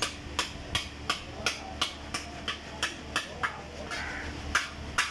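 Hammer striking sheet metal in a steady rhythm of about three blows a second, with a short pause near the end: a damaged car body panel being beaten back into shape.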